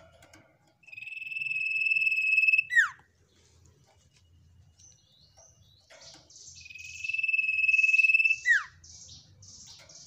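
Sirtu songbird singing two long, steady whistled notes, each about two seconds, swelling louder and ending in a quick downward slur. The second is followed by a quick run of short, higher chirps.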